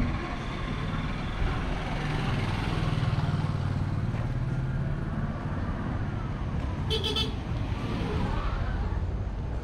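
Street traffic: a passing three-wheeled tuk-tuk's small engine makes a low steady hum, loudest from about one to five seconds in. A short high beep, like a horn toot, sounds about seven seconds in.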